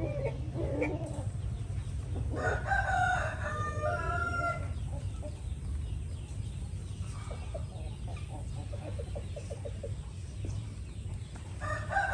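Rooster crowing once, a couple of seconds in, followed later by a run of quick short clucks, over a steady low hum.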